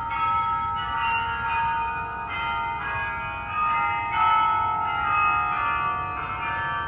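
Bok Tower's 60-bell carillon playing a slow tune: bronze bells struck one after another, a new note every half second to a second, each ringing on and overlapping the next.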